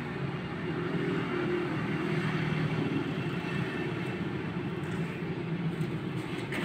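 A steady low rumble, like an engine running, with no distinct knocks or strikes.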